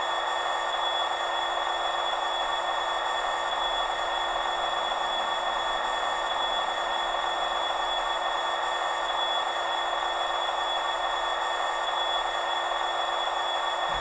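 Sampled Class 66 diesel engine idling, played by a Hornby HM7000 TXS sound decoder through a small sugar-cube speaker in a stationary model locomotive: a steady, thin hum with little bass and a faint constant high tone, unchanging throughout.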